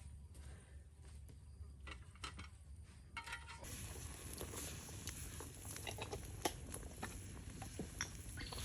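Faint clinks and taps of cooking utensils, then, from about three and a half seconds in, a steady hiss with many small ticks.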